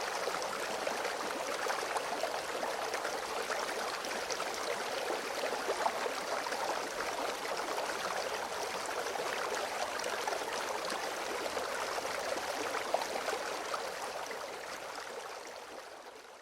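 A small stream babbling and trickling over stones, a steady splashy rush with many small gurgles, fading out near the end.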